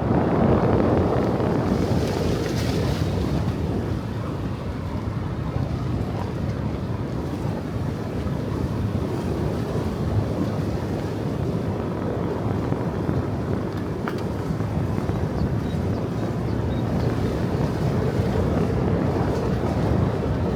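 Steady rush of a mountain stream or waterfall, a continuous even noise of flowing water.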